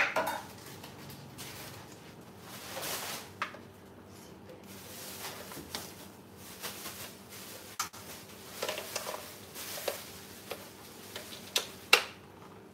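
Scattered light clicks, taps and rustles of objects being handled, with a sharp knock at the start and another near the end.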